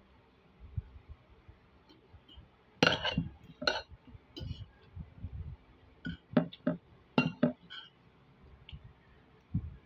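Metal spoon and fork clinking against a plate as fish and rice are picked apart: a scatter of short, sharp clinks, most of them from about three seconds in.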